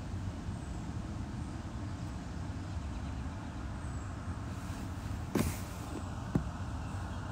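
Steady low rumble inside a car, with a sharp knock about five seconds in and a smaller one a second later.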